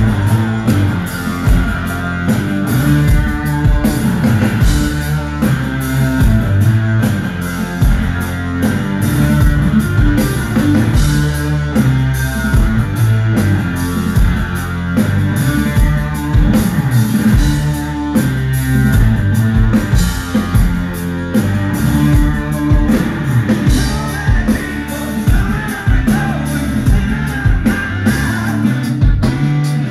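Rock band playing live through a concert PA: electric guitars and a drum kit driving a steady beat, with singing.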